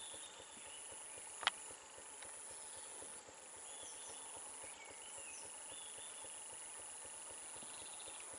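Faint roadside forest ambience: scattered short bird chirps over a steady high insect drone, with one sharp click about a second and a half in.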